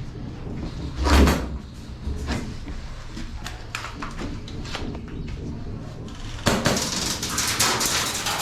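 Airsoft firefight: irregular sharp clicks and knocks of BBs being fired and striking nearby, with a louder thump about a second in and a denser clatter from about six and a half seconds.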